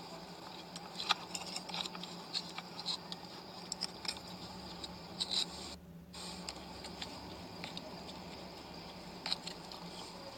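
Irregular small clicks, taps and light scrapes of hands working grease into the parts of a car starter motor, over a steady low hum.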